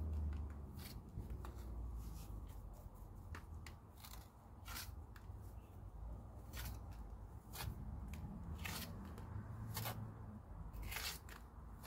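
Steel pointing trowel scraping lime mortar off a hawk and pressing it into brick joints: a string of short, irregular scrapes and clicks over a low steady hum.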